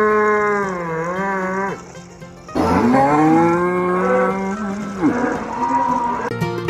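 A cow mooing in long drawn-out calls: one moo trails off early on, a second long moo follows about two and a half seconds in, and a shorter call comes after it. Plucked-string music starts near the end.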